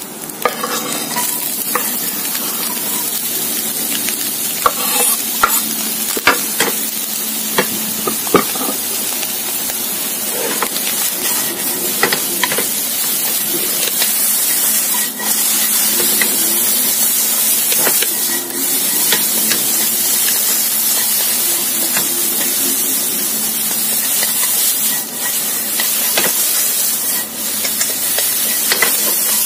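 Diced bell peppers, spring onion and scrambled egg sizzling in a hot non-stick wok as they are stir-fried with wooden chopsticks, with occasional sharp taps of the chopsticks against the pan.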